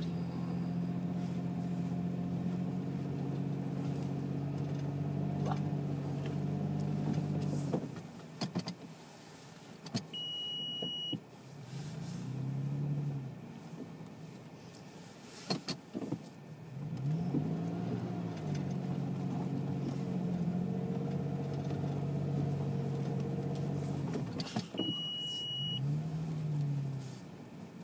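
Toyota FJ Cruiser's 4.0-litre V6 engine heard from inside the cabin, pulling through deep snow, its pitch rising and falling several times as the throttle is worked, with a quieter stretch in the middle. Scattered knocks, and a short high beep twice.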